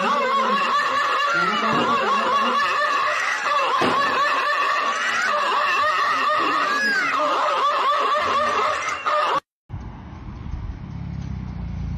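A high, wavering, voice-like sound runs on without a break, then cuts off abruptly. After it, a Toyota Supra's engine rumbles low, growing louder as the car approaches.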